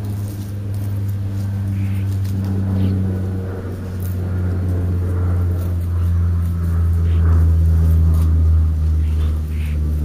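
A steady low engine hum, like a motor vehicle running nearby, its pitch dipping slightly about six seconds in.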